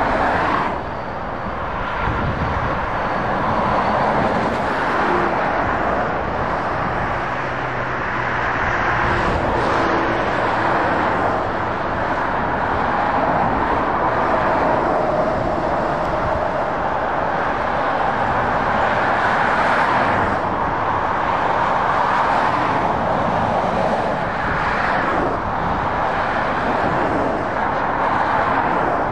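Motorway traffic: heavy lorries and cars passing in a steady stream, tyre noise and diesel engines swelling and fading as each vehicle goes by.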